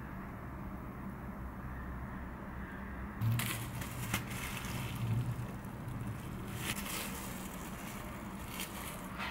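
Cling-film-covered bamboo sushi mat crinkling and rustling as it is wrapped around a rice roll and pressed into shape, in a run of irregular crackly scrapes starting about three seconds in. A low steady hum runs underneath.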